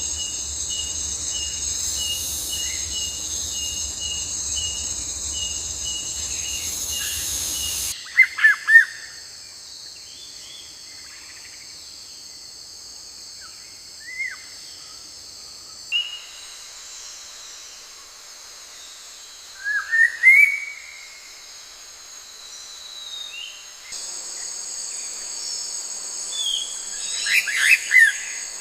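Tropical forest ambience: a steady high drone of insects, with scattered short bird chirps and gliding calls, several in quick runs. For the first eight seconds a pulsing insect tone of about two beats a second sits over it, and the background shifts abruptly at regular intervals of about eight seconds.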